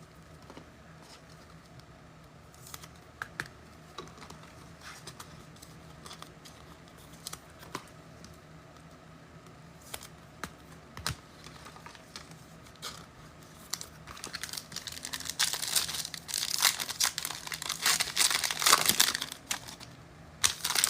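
Trading cards handled with scattered light clicks, then the wrapper of a trading card pack crinkling and tearing open for several seconds, starting about fourteen seconds in.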